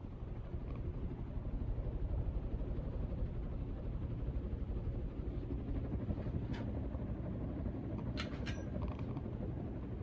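Hunter Original ceiling fan running, a steady low hum and whoosh of its motor and the blades moving air. A few light clicks come about six and a half seconds in and twice around eight seconds.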